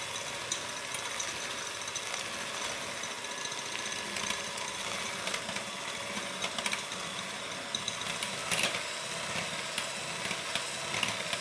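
KitchenAid electric hand mixer running steadily at medium speed, its beaters whipping egg whites into meringue in a glass bowl as sugar is added, with occasional light ticks.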